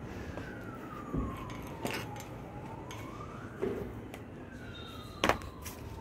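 A siren wailing, its pitch sliding slowly down and back up over a few seconds, twice. A few short sharp taps or knocks sound over it, the loudest shortly before the end.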